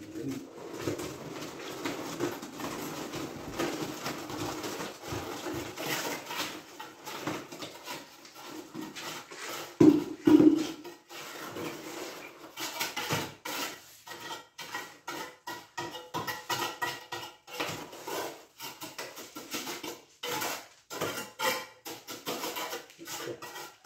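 Irregular knocks, scrapes and clatter of hand masonry work, with broken concrete rubble and hollow concrete blocks being handled and shifted. Two loud thuds come about ten seconds in.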